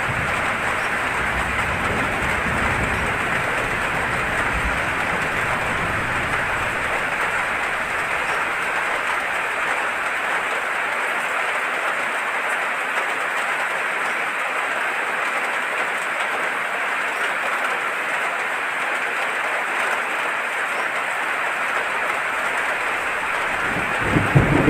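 Heavy rain falling steadily. A low rumble of thunder dies away over the first ten seconds or so, and another rumble starts right at the end.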